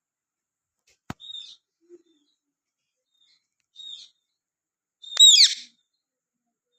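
Pet ringneck parakeet giving short, high calls: one just after a sharp click about a second in, another near four seconds, and a louder, longer screech just after five seconds.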